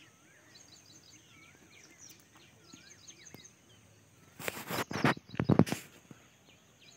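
Birds calling in the trees, with short chirps and rising-and-falling whistles. About four and a half seconds in comes a second and a half of loud, close rustling and crackling, the loudest sound here.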